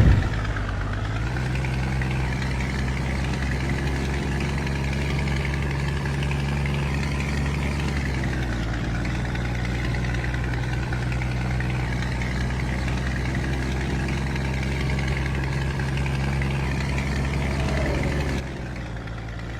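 Scania truck diesel engine idling steadily with an even low rumble; its level drops shortly before the end.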